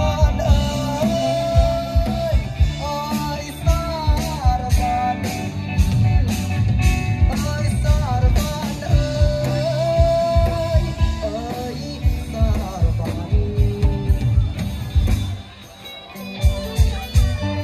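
Live band music: a singer over a steady drum beat and electric guitar. The music drops away briefly near the end, then the band comes back in with the guitar.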